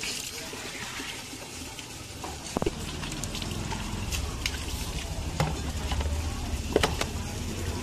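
Water splashing and sloshing in a small jug as a hand dips in to rinse raw chicken pieces, with a few sharp knocks. A low steady rumble comes in about three seconds in.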